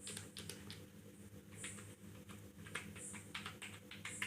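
Keys of a ProDot KB-207s keyboard being typed on: a quick, irregular run of light clicks, over a steady low hum.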